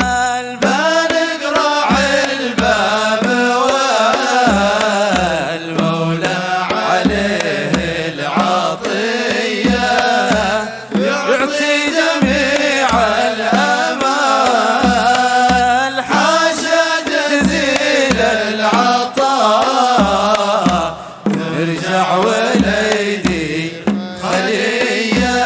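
Nasheed music between sung verses: a melody without words over a steady, low drum-like beat.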